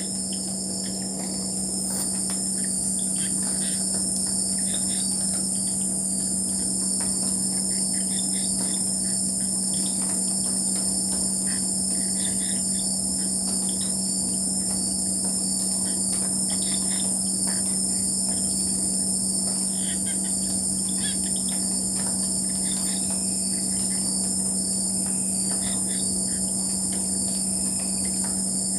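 Night chorus of crickets and other insects, a steady high shrill, with frogs calling in short notes scattered throughout.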